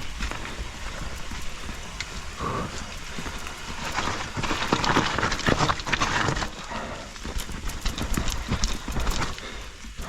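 Enduro mountain bike rattling over rough trail: a fast, uneven clatter of tyre knocks, chain slap and frame rattle, busiest about four to six seconds in.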